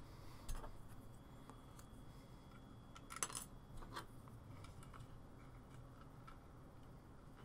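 Small clicks and taps of plastic model-kit parts being handled and pressed together, with a short cluster of sharper clicks about three seconds in, over quiet room tone.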